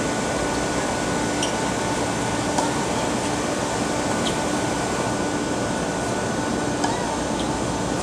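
Steady background hiss and hum, with faint tennis racket-on-ball strikes every second or two during a rally.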